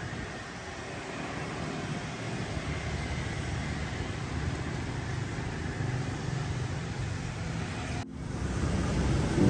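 Steady road traffic noise, a low rumble of passing vehicles, broken by a sudden brief dropout about eight seconds in.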